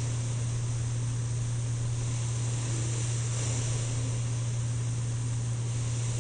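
CPAP machine running with a steady low hum and a hiss of air, with the sleeper's breath through the mask swelling the hiss briefly a little after three seconds in.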